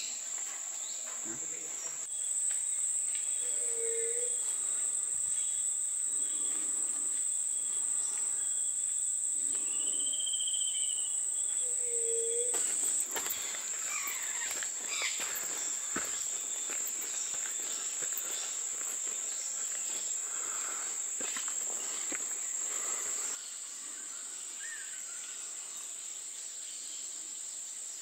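Steady high-pitched trill of insects in tropical forest, with a few short calls over it. The level jumps up about two seconds in, then drops twice, later on.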